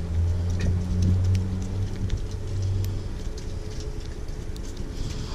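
A low, steady engine-like rumble, loudest over the first three seconds and then easing off, with faint scattered clicks and taps.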